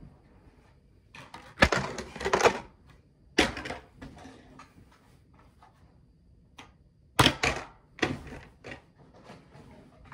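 Irregular knocks, clicks and clatter of objects being handled and set down, louder in a few clusters.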